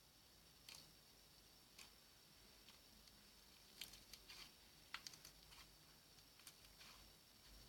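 Very faint, scattered clicks and small pops of slime being handled, bunched together near the middle, over a steady faint hiss.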